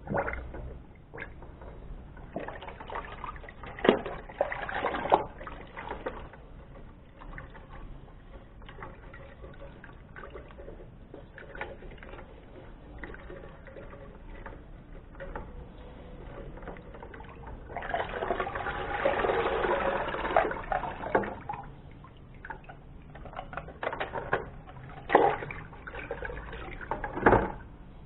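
Water sloshing and splashing in a plastic bucket as hands push juicer parts under and move them about, with now and then a sharp knock of plastic on plastic. There is a longer stretch of steady sloshing about two-thirds of the way through.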